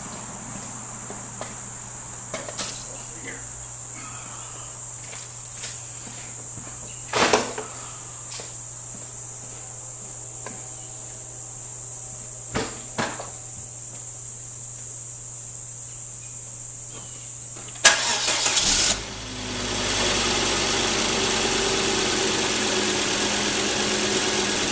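Volvo XC90 engine started: a few scattered clicks and knocks, then about 18 seconds in the engine cranks, catches and settles into a steady idle.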